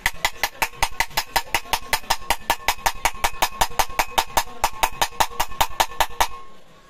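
Rapid light taps, about six a second, seating a new bearing into a ceiling fan's bearing housing, each strike with a short metallic ring. The taps stop shortly before the end.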